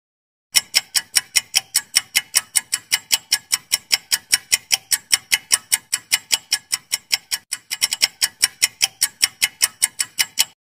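Clock-ticking timer sound effect: sharp, rapid ticks at about five a second, starting about half a second in and stopping just before the end, with a brief stumble in the rhythm about three quarters of the way through.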